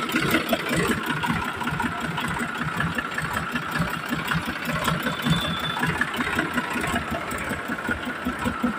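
Sonalika DI 750 tractor's diesel engine idling steadily, with a rapid, even beat.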